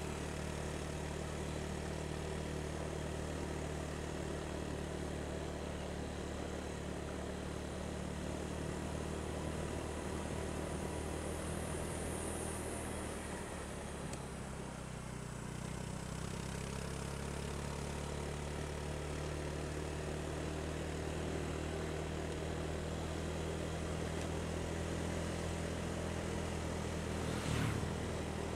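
Motorcycle engine running steadily while riding along a road, its note dipping and shifting about halfway through, with a short rise and fall in pitch near the end.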